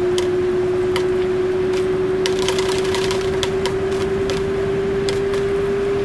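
Fisher & Paykel Washsmart WA8560G1 top-loading washing machine with its basket spinning: a steady motor whine that slowly rises in pitch, over a rushing background with scattered light ticks, thickest about halfway through.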